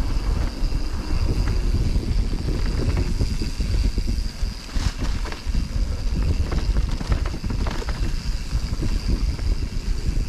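Mountain bike riding a dirt trail, heard through a ride-mounted camera: wind buffeting the microphone and an uneven rumble from the ride, with scattered clicks and rattles and a faint steady high tone.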